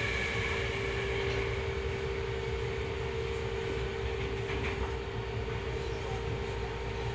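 Tokyo Metro 10000 series train running, heard from inside the car: a steady rumble of wheels on rails under a constant two-note hum.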